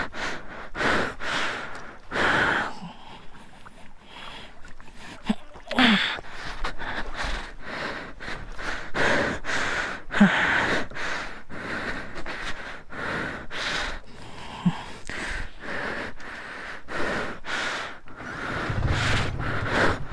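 A person's heavy, rapid breathing with gasps, a quick run of breaths a fraction of a second apart, from exertion. Near the end a low steady motorcycle engine hum sets in.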